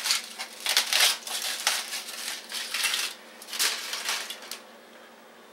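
Aluminum foil crinkling in irregular bursts as it is peeled and crumpled off a wrapped cell phone; it stops about four and a half seconds in.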